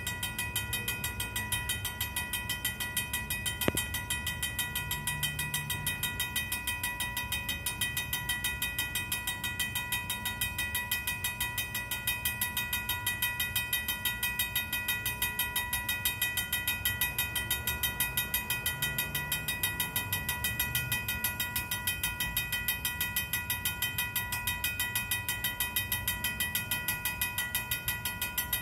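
Old mechanical railroad crossing bell ringing in rapid, even strokes. A single sharp click sounds about four seconds in.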